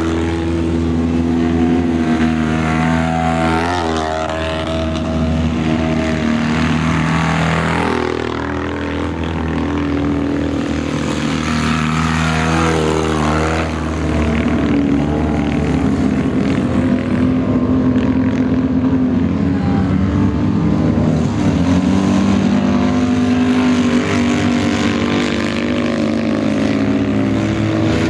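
Several Citroën 2CV autocross cars racing, their air-cooled flat-twin engines running at high revs. The engine notes overlap and rise and fall in pitch with gear changes and lifts.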